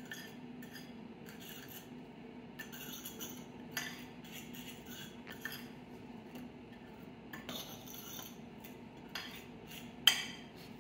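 A metal fork stirring and scraping through seasoned flour in a ceramic bowl, its tines clinking and scraping against the bowl again and again. A louder clatter comes near the end. A faint steady low hum runs underneath.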